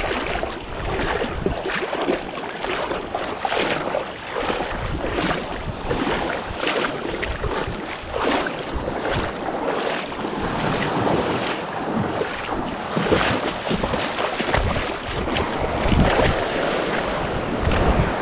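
Shallow surf sloshing and splashing around a wading angler, with wind buffeting the microphone.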